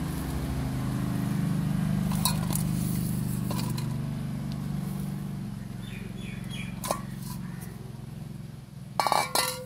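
A low, steady mechanical hum that slowly fades over the second half. Light clicks sound a few times, and a loud cluster of knocks comes near the end.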